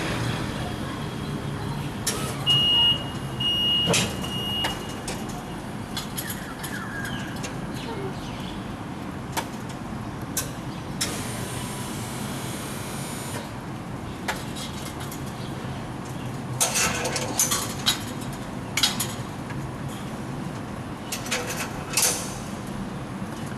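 Roadside construction-vehicle noise: a steady engine and traffic hum with scattered knocks and clatters. A few seconds in comes a short run of high beeps like a machine's warning alarm.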